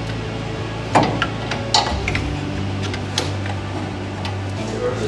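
Front disc brake caliper of a 1986 Chevy C10 being worked loose and handled, giving a few sharp metal clinks and knocks. The loudest comes about a second in, and others follow near two and three seconds.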